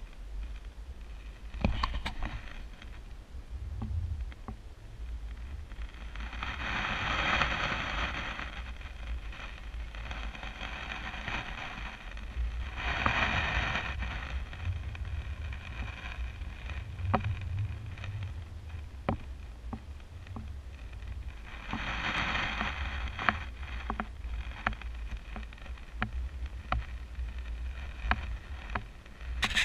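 Wind rumbling on the microphone, with small waves washing up on a sandy shore in a soft hiss three times, plus a few faint clicks.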